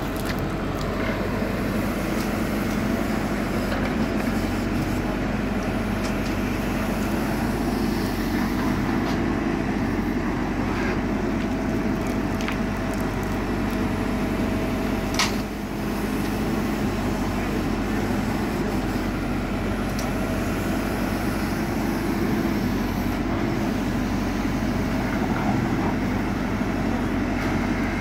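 JCB 4CX backhoe loader's diesel engine running steadily as the machine works, with a single sharp knock about halfway through.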